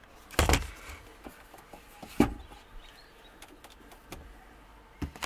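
A dull thump about half a second in and a sharper knock about two seconds in, with light clicks and rustling between: handling noise from someone moving about in a car's driver seat, inside the cabin.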